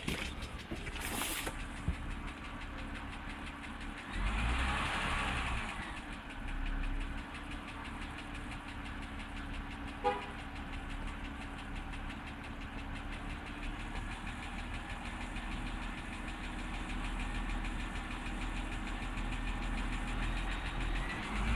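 2007 BMW X3 engine running with a rapid, steady ticking or knocking. The tick appears intermittently after a start, grows with throttle and fades once the engine is warm, which the owner takes for a mechanical fault. A short louder rush of noise comes about four seconds in.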